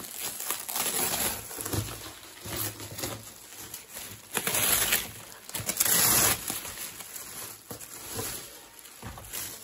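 Plastic wrap being pulled off a cardboard box and crumpled by hand, an irregular crinkling rustle with two louder bursts around the middle.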